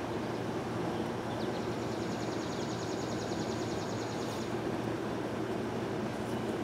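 Steady hum of a honeybee colony around a comb lifted out of an open top-bar hive. A faint, fast, high ticking trill joins about one and a half seconds in and stops about three seconds later.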